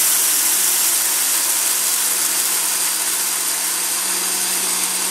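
Blendtec blender motor running steadily at medium speed, grinding whole wheat grain into flour in an Alterna Jar: a constant motor hum under the rushing hiss of grain swirling against the blade and jar walls.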